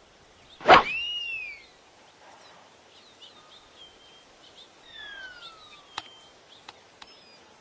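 A golf club strikes the ball with one sharp crack, and a whistle follows that rises and then falls away over about a second. Throughout, there is steady outdoor ambience with small birds chirping, and later a shorter falling whistle and a few faint clicks.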